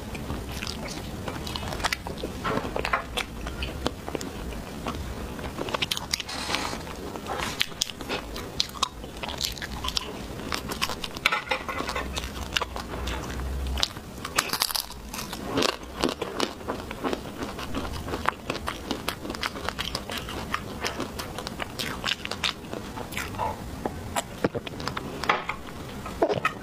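Close-miked eating sounds of a person biting and chewing chocolate cake: many small irregular clicks and crunches.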